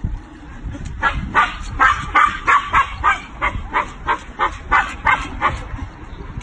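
A husky barking and yipping in a rapid run of about fifteen short calls, roughly three a second, starting about a second in and stopping shortly before the end.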